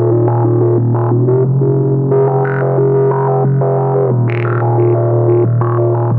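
Modular synthesizer sequence of short notes over a steady bass tone, the filter cutoff stepping to a random setting on each note so some notes sound bright and others dull: random voltage from a sample-and-hold module sampling white noise, patched to the filter cutoff.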